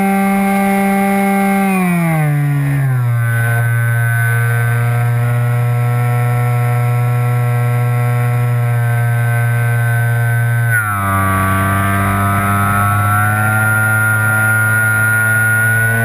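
Onboard sound of a model plane's motor and propeller: a steady droning whine. The pitch slides down about two seconds in as the motor slows, holds low, shifts suddenly near eleven seconds, then creeps slowly back up.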